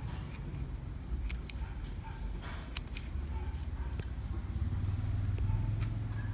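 A few sharp clicks of scissors snipping chili seedling stems, one to three seconds in, over a low background rumble that grows louder about five seconds in.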